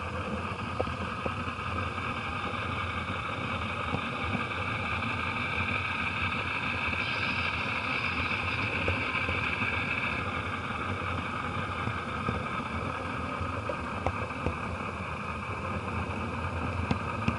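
Model train rolling along the track, a steady rolling hum with a few scattered clicks as the wheels cross rail joints, heard muffled through the camera's waterproof case riding in the lead gondola.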